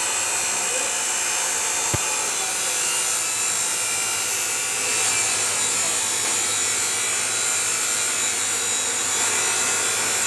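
TIG welding arc hissing steadily while filler rod is hand-fed into a joint on a metal plate, with a faint low hum underneath. A single sharp click about two seconds in.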